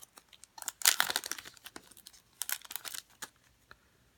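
Handling of 2015 Prizm football trading cards and their foil pack wrapper: crinkling and rustling in two short spells, with light clicks as the cards are shuffled.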